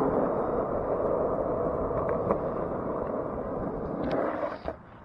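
Skateboard wheels rolling on asphalt: a steady rough rolling noise with a couple of faint ticks about two seconds in, dying away near the end as the board slows to a stop.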